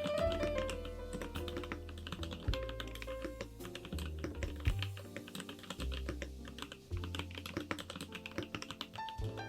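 Fast, continuous typing on a KBDFans Tofu65 mechanical keyboard with Kailh Icecream switches: a dense run of key clicks, heard over background music.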